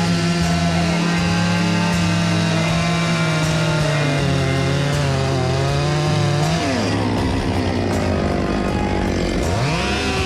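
Chainsaw running at high revs while cutting, then throttled down about seven seconds in and revved back up near the end.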